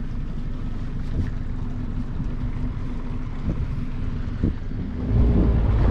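Small fishing boat's motor running steadily under way, with wind on the microphone. About five seconds in the sound grows louder with a heavier low rumble.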